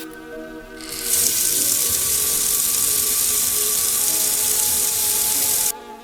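Water spraying steadily, starting about a second in and cutting off suddenly near the end, over background music.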